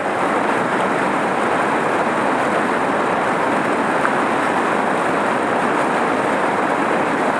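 Whitewater at East Fork Falls rushing over rock ledges: a loud, steady rush of water.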